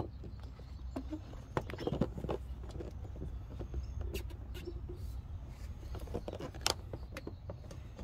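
Scattered faint clicks and knocks from the phone camera being handled and repositioned, over a low steady rumble.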